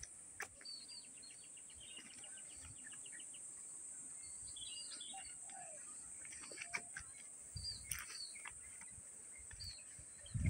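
Small birds chirping and calling, with a fast rattling trill about a second in that lasts a couple of seconds, over a steady high hiss. A low thump comes near the end.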